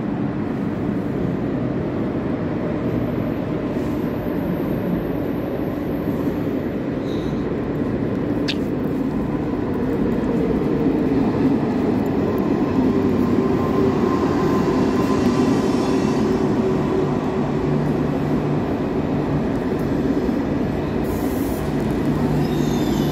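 KTX high-speed train pulling in alongside the platform: a steady rumble that grows louder about ten seconds in as the train draws level, with a low hum in the last few seconds.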